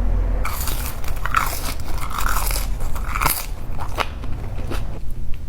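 Close-miked biting and chewing of crispy fried chicken tenders, with a string of loud, irregular crunches.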